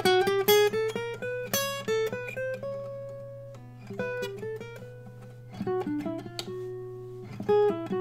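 Acoustic guitar played one note at a time: two quick runs of plucked single notes moving up and down through a melodic figure, with a short pause about halfway.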